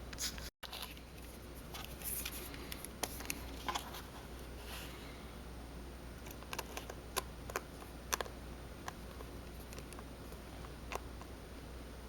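Scattered small clicks and light taps of tools and parts being handled inside a phone during reassembly, over a steady low background hum.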